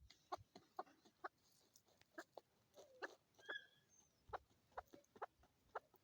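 Chukar partridge giving a run of short, sharp clucking notes, about two a second and irregularly spaced.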